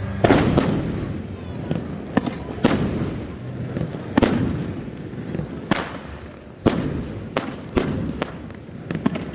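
Fireworks bursting in an irregular volley: about a dozen sharp bangs at uneven intervals, each trailing off in an echo.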